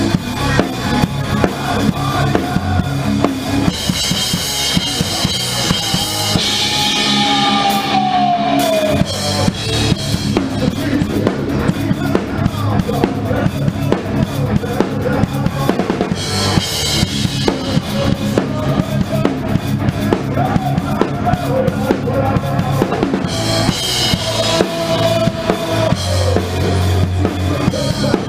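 Heavy metal band playing live, with the drum kit loud and close: fast bass drum and snare hits driving the song, and crash cymbals washing over it in several stretches.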